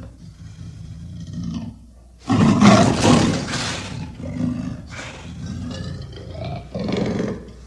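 Leopard calling: a loud call starts suddenly about two seconds in and lasts nearly two seconds, followed by several shorter, quieter calls.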